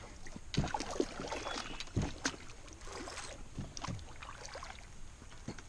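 Irregular knocks and taps on a canoe hull while a hooked pike is played from the canoe, the sharpest about half a second and two seconds in.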